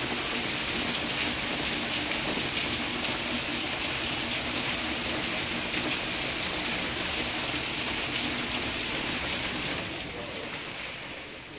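Heavy thunderstorm rain pouring down steadily, a loud even hiss of water, fading near the end.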